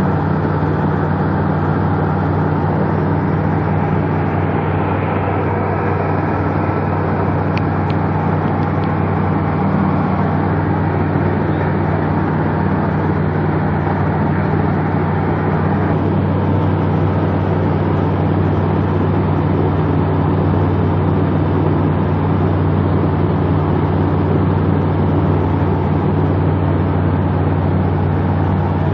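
Steady drone of a Roko Aero NG-4 light aircraft's piston engine and propeller in level cruise, heard inside the cockpit, with a constant rush of noise over a low hum.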